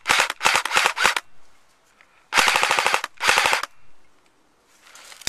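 JG G3 electric airsoft rifle firing short full-auto bursts of rapid shots: one burst in the first second, then two more about halfway through.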